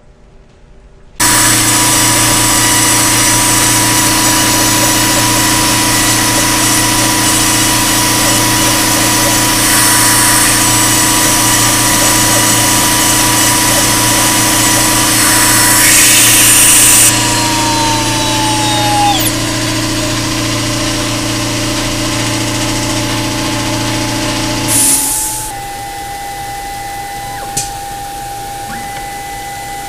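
CNC PCB milling machine running, a loud steady whir with a steady whine that starts about a second in. Past the middle a whine falls in pitch and stops as the spindle winds down. A few seconds later the loud part cuts off, leaving a quieter steady hum and a single click as the machine goes to its tool rack to change bits.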